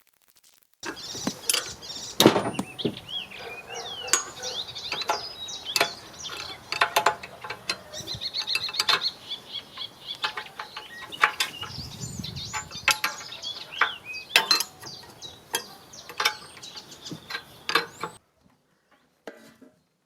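Irregular sharp metallic clinks and knocks of hand tools working on a flail mower, with birds singing in the background. The sound starts abruptly about a second in and cuts off shortly before the end.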